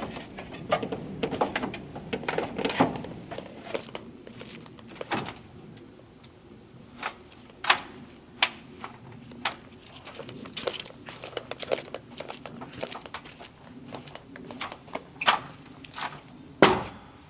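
Scattered sharp knocks and clanks of an aluminium extension ladder being climbed down and shifted against a wooden wall, with the loudest thump near the end.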